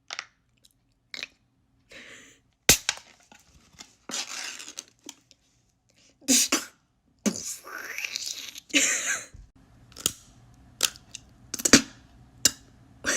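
Mouth-made sound effects from a beatboxer: irregular sharp clicks and short crunching, hissing bursts, an imitation resembling chewing or crunching.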